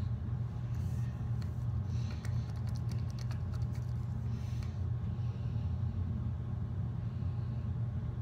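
A steady low hum throughout, with faint clicks and scraping from a stick stirring slime in a small plastic cup between about one and five seconds in.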